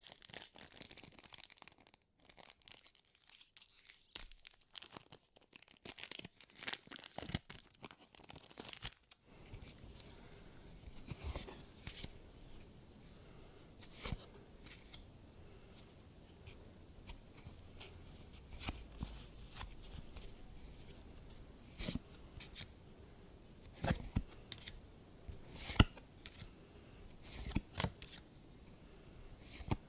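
Foil wrapper of a Magic: The Gathering booster pack being torn and crinkled open, a dense crackle for about the first nine seconds. After that, playing cards are slid and flipped one at a time, with a few sharp snaps.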